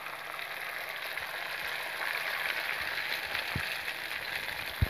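Turkey eggs sizzling in hot oil as they land in a wok of fried onion, tomato and green chilli, a steady hiss, with a light knock near the end.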